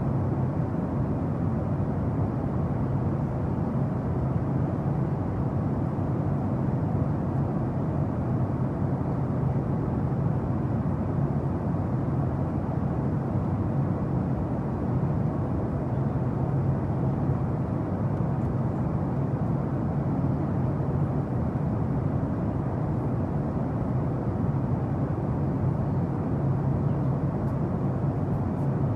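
Jet aircraft noise: a steady, deep rumble that holds level without rising or falling.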